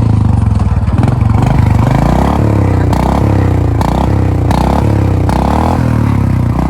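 Motorcycle engine being revved again and again, its pitch climbing and dropping about every second. Sharp pops crack out as the revs fall: exhaust backfires on the overrun.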